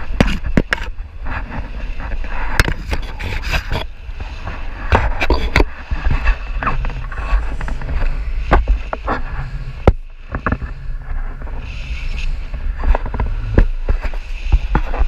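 Airflow buffeting an action camera's microphone in flight under a tandem paraglider: a steady low rumble broken by frequent sharp pops and knocks.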